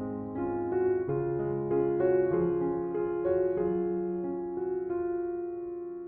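Background piano music, a slow melody of sustained notes over held chords.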